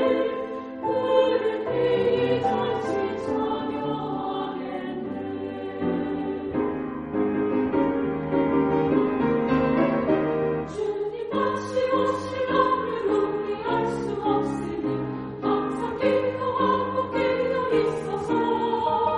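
Women's choir singing a sacred choral song, several voice parts holding sustained notes that shift in pitch together.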